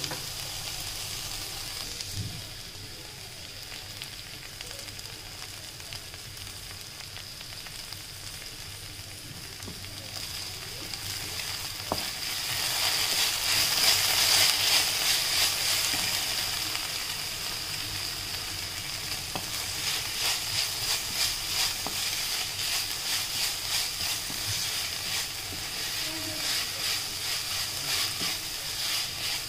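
Shredded cabbage and green capsicum sizzling in a hot non-stick wok while a wooden spatula stirs them. The sizzle grows louder about twelve seconds in. Later the spatula strokes come in a steady rhythm of about two a second.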